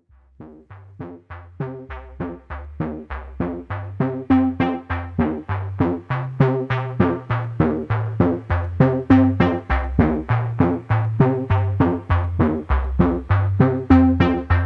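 Background music: a rhythmic electronic track with about three struck notes a second over a stepping bass line, fading in over the first few seconds.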